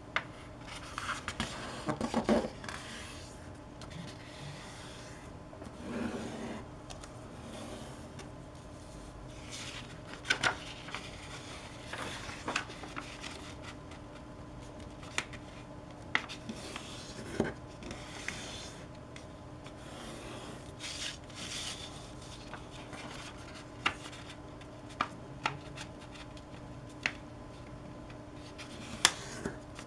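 A sheet of origami paper being handled and folded by hand: irregular rustling and rubbing as fingers smooth and crease the folds, with scattered short sharp ticks.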